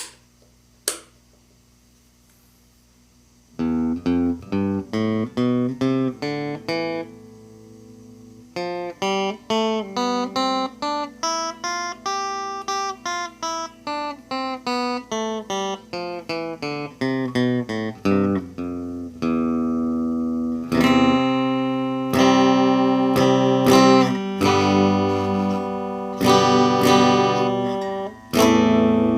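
Epiphone electric guitar played clean through a small combo amp. After two sharp clicks and about three seconds of hush, single notes are picked in rising and falling runs, then chords are strummed from about twenty seconds in.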